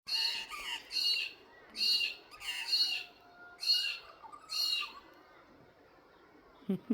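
Magpie calling: six short repeated calls about a second apart that stop about five seconds in, then a low thump near the end.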